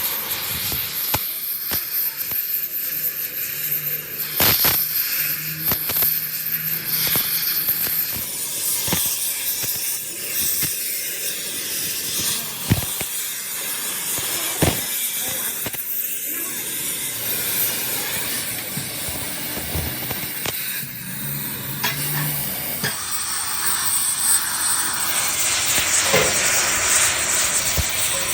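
A steady high hiss with many scattered sharp clicks and knocks.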